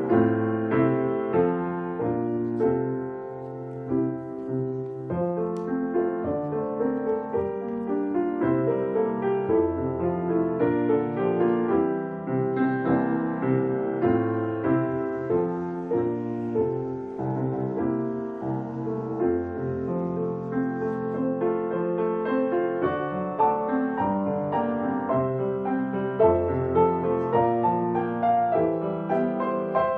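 Grand piano played solo: a continuous arrangement of melody over full chords.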